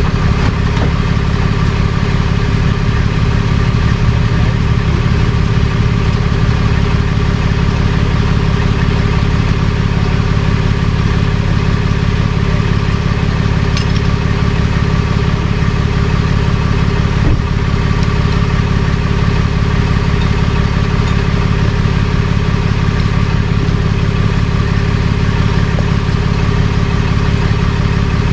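Truck engine running steadily at idle, with a couple of faint clicks partway through.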